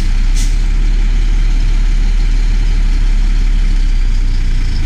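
Fire engine's diesel engine idling, heard from inside the cab as a steady low rumble, with a brief hiss about half a second in.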